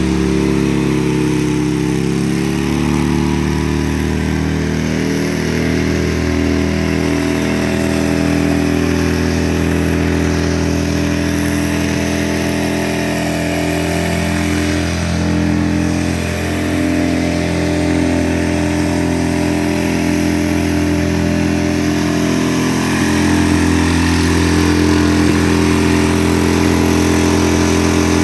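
1996 Cub Cadet 1430 lawn tractor's engine running at a steady speed as the tractor drives, settling slightly lower in pitch about two seconds in.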